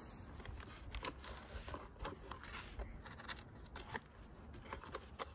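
Scraping and irregular small clicks of a flat scraper tool being worked into the entrance of a beehive.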